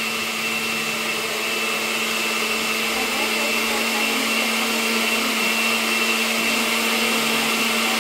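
A plantain-dough patty sizzling in hot oil in a frying pan: a steady hiss, growing slightly louder, with a steady low hum underneath.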